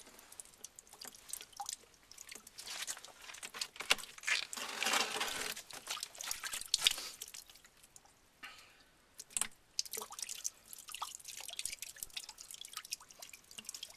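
Scattered small clicks, taps and brief rubbing as a white plastic stiffener insert is worked into the cut end of 1/2-inch PEX tubing.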